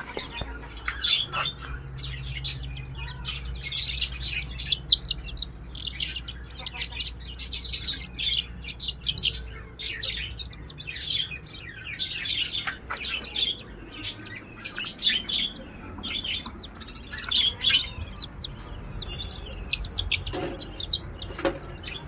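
Aseel chicks peeping, many short high chirps over and over while they are held in the hand and moved into a cage.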